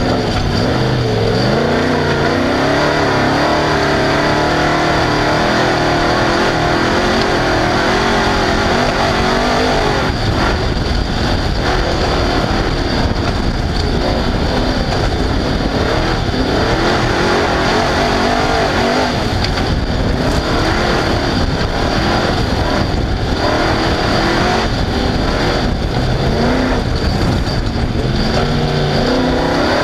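Off-road race car engine running hard, its pitch rising and falling again and again as it accelerates and backs off, over a constant loud rush of noise.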